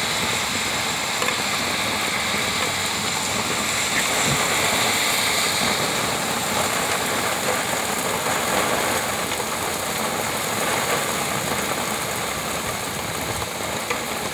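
Heavy rain pouring steadily onto a paved parking lot, a dense even hiss.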